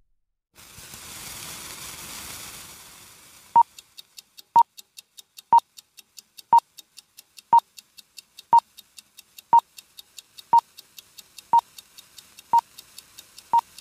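Film-leader countdown sound effect: about three seconds of hissing noise, then a short beep once a second, eleven in all, with faint clicking about four times a second between the beeps.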